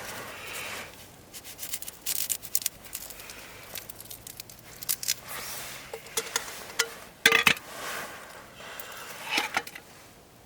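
Close-up handling noises: irregular crinkles, scrapes and sharp clicks, like packaging or gear being worked by hand, with the loudest click about seven seconds in.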